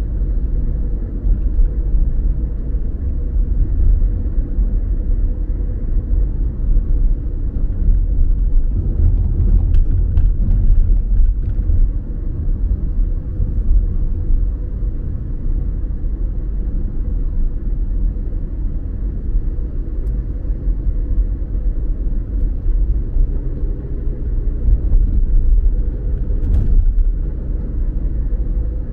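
Steady low rumble of a car driving, with road and engine noise heard from inside the cabin. A faint steady hum runs underneath, and a few brief small knocks come around the middle and near the end.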